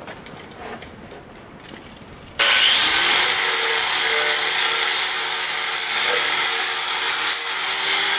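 Handheld angle grinder grinding steel: it comes in suddenly about two and a half seconds in and holds a loud, steady whine with the hiss of the disc on the metal.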